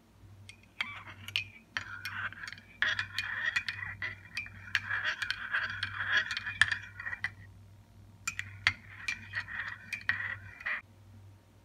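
A teaspoon stirring black coffee in a white ceramic cup, scraping and clinking against the inside of the cup in two spells, with a short break about seven and a half seconds in.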